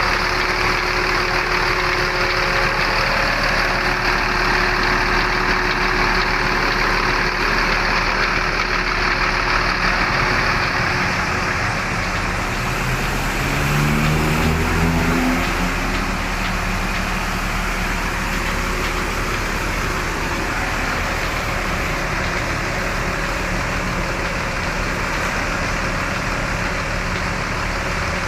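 Steady running noise of a bus's engine and road heard inside the cabin. About halfway through, a short series of stepped tones rises in pitch.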